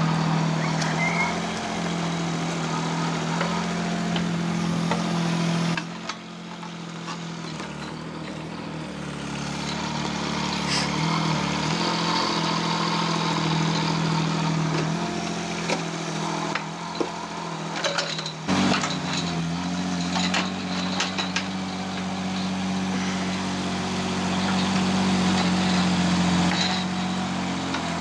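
Kubota U10 mini digger's small diesel engine running steadily as it digs out turf and soil, with scattered knocks and clatters from the bucket and tracks in the second half. The engine note changes abruptly twice.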